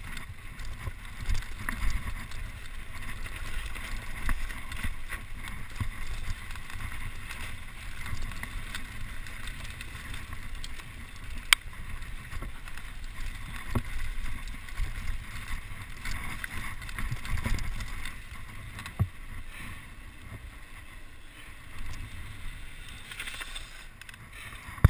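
Mountain bike riding down a rocky dirt trail: tyres running over dirt and stones with a low rumble of wind on the microphone, and a few sharp knocks as the bike rattles over rocks.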